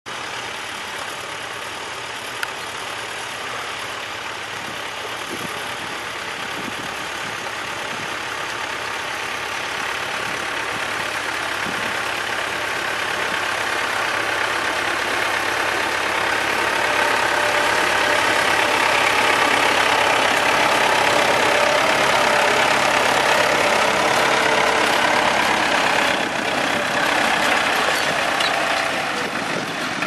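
Massey Ferguson 165 tractor's engine working steadily under load, pulling a three-furrow plough through the soil. It grows louder as the tractor comes close, and is loudest in the second half.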